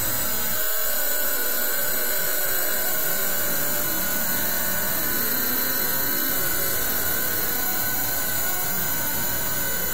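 Steady, loud rushing noise, even across the whole range like static, with a few faint steady high tones running through it.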